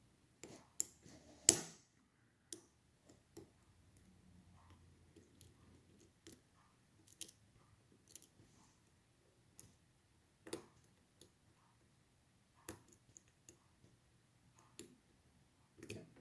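Lock pick and tension wrench working the pin stacks of a Schlage Primus Everest lock cylinder: small, faint, irregularly spaced clicks and ticks, with one louder click about a second and a half in.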